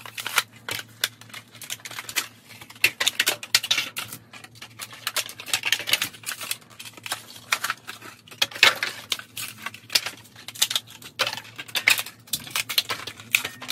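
Hot Wheels blister packs being ripped open by hand: irregular crinkling, crackling and tearing of the plastic and card, with small clicks.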